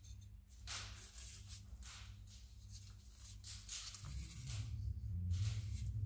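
Gloved hands handling a plastic cookie press, making short rustling and scraping sounds two or three times a second. A steady low hum underneath grows louder in the last two seconds.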